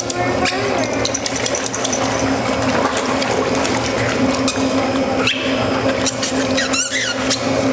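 Aqua Pacer underwater treadmill running with a steady hum, water splashing around the dogs' legs, and many short high squeaks and clicks. A wavering squeal comes near the end.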